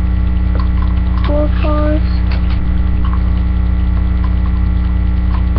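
Steady electrical mains hum. Two brief pitched voice sounds come about one and a half seconds in, and there are scattered faint clicks.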